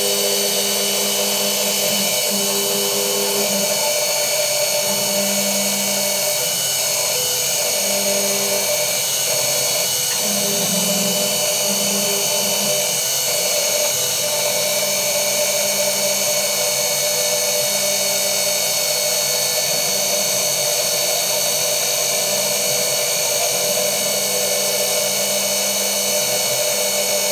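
CNC-converted G0704 (BF20-type) benchtop milling machine running an end mill through a block of Nylotron. A steady high whine with cutting noise, and a lower tone that switches on and off every second or two as the cut moves along.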